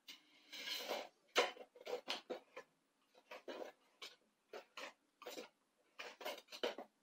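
A thin knife blade scraping between a baked chiffon cake and the pan's metal base to free the cake. It makes a string of short, irregular scrapes, the longest about half a second in.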